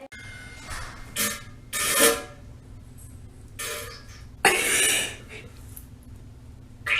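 A young woman's bodily gas noises, burps and farts, in several separate short blasts. The loudest come about two seconds in and at about four and a half seconds, the second one lasting most of a second.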